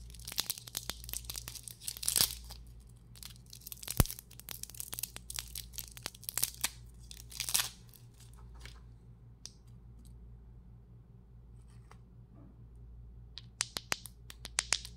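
Plastic lollipop wrapper crinkling and tearing as it is worked off the candy: a dense run of crackles with a sharp click about four seconds in, easing off after about eight seconds. A short burst of crackling comes again near the end.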